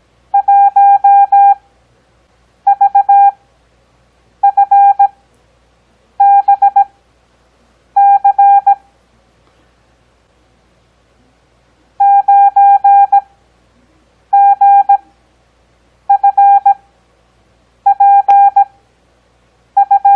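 Morse code practice tone, a single steady beep keyed on and off at 17 words-per-minute character speed with wide Farnsworth spacing (6 WPM overall): each character is a quick run of dits and dahs, followed by a pause of about a second. Five characters, a longer pause of about three seconds, then five more.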